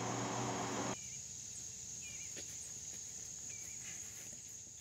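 Faint steady high-pitched trilling of crickets or other insects, with a couple of faint bird chirps. A low background noise drops away about a second in.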